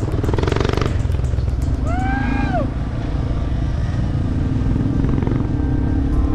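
Yamaha TW200 dual-sport motorcycle's single-cylinder engine running steadily under way. About two seconds in, a short tone rises and then falls in pitch.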